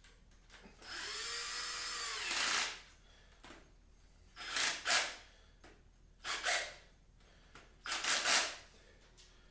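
Power drill driving small Phillips screws. The motor runs for about two seconds, spinning up and winding down in pitch, then gives three short bursts.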